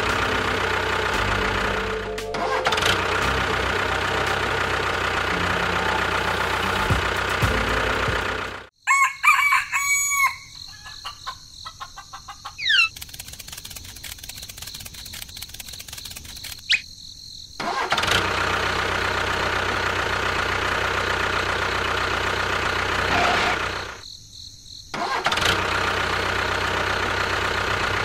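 Tractor engine running steadily, broken off about nine seconds in by a rooster crowing. After a quieter stretch the engine sound resumes, dropping out briefly near the end.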